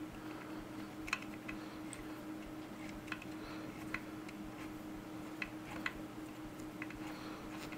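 Light, irregular metal ticks, one or two a second, from a Torx key turning a loosened bolt out of a Stihl 500i chainsaw's housing, over a faint steady hum.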